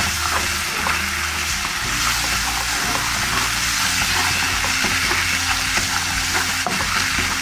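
Tomato purée with oil and dried herbs sizzling in a hot pan as a spatula stirs it around, with soft scraping. Quiet background music runs underneath.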